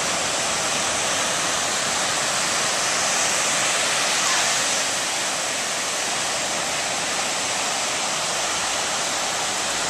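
Ocean surf breaking and washing up the beach, a steady rushing hiss.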